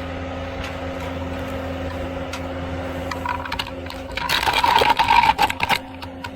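An engine running steadily with a constant hum. About four seconds in, a loud flurry of rapid metallic clicks and rattles lasts a second or two.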